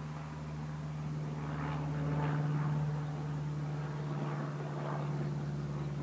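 Propeller aircraft engine droning steadily overhead, growing louder to a peak about halfway through, then easing slightly.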